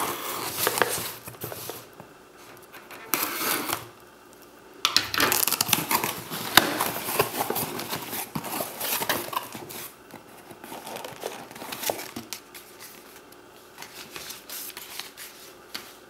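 Product packaging being handled and opened: plastic crinkling and tearing, with short clicks and knocks, in bursts that come and go.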